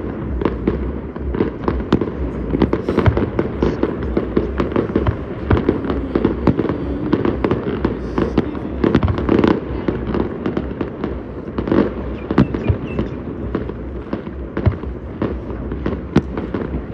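Fireworks going off in a dense, continuous barrage: many overlapping bangs and pops, several a second, over a low rumble.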